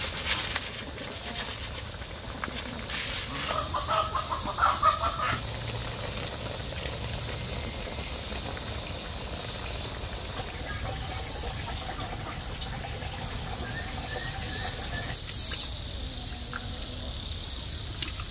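Soup boiling in a large pan over a fire, giving a steady bubbling hiss with steam. About four seconds in comes a short burst of animal calls.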